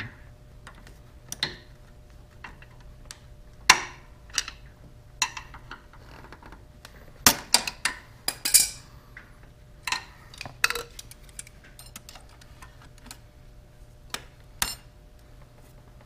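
Metal hand tools, pliers and a screwdriver, clicking and clanking irregularly against the hose clamps and the tractor's transmission housing as the clamps are worked loose, with a busier run of louder clinks about halfway through.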